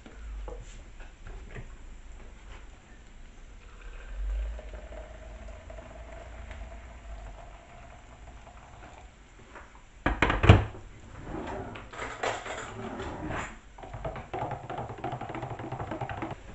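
Hot water poured from an electric kettle into a plastic measuring jug, a faint tone rising gently as the jug fills. About ten seconds in comes a loud knock, then a spoon rattles against the jug as the stock is stirred.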